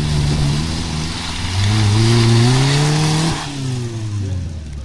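Suzuki Jimny's engine revving hard in the mud, rising in pitch for about two seconds and then dropping away, over a rushing noise of the tyres churning through mud that cuts off about two-thirds of the way through.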